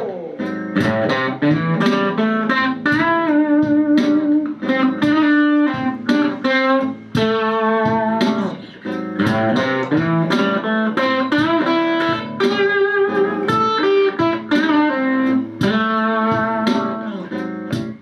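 Electric guitar, a Stratocaster-style instrument through an amplifier, playing a single-note blues lead phrase on the A minor pentatonic scale with the flat fifth added as a passing tone. The phrase uses string bends and slurs, with some held notes, and it tails off near the end.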